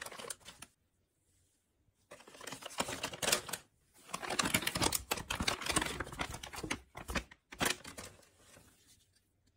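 Kraft paper pouches with plastic windows rustling and crinkling as they are handled, opened and emptied of an oil-change kit, in two long stretches, with a single sharp click near the end.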